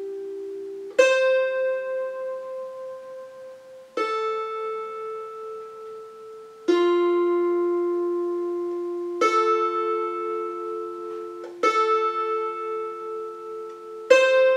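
Lithuanian traditional kanklės, a wooden board zither, strummed with a plectrum while the left-hand fingers rest on the strings to shape each chord. Six slow chord strokes come about every two and a half seconds, each ringing on and fading.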